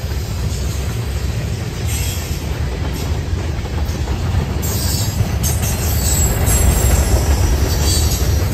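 Freight train of covered hoppers and tank cars rolling past close by: a steady low rumble of steel wheels on rail, growing a little louder toward the end, with a faint high wheel squeal joining about halfway.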